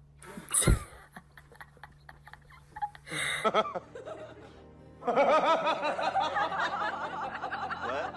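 A sudden thump just after the start, then faint clicks; from about five seconds in, music mixed with laughing.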